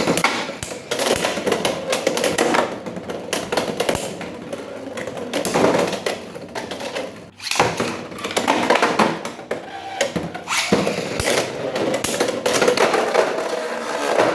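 Toy packaging being handled and opened: a dense, irregular run of crinkles, clicks and taps from plastic and cardboard.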